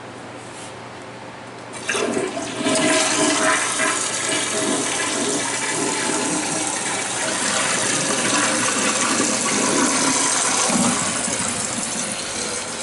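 Toilet flushing: a loud rush of water starts about two seconds in and keeps going, easing a little near the end.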